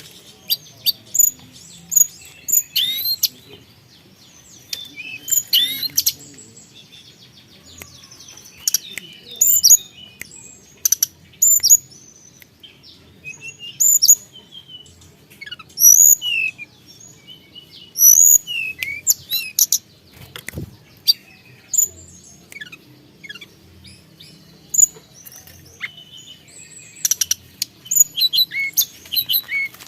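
Tledekan gunung, a blue flycatcher, singing: a lively run of short, sharp high whistles and quick sweeping chirps, some falling and some rising, in rapid clusters.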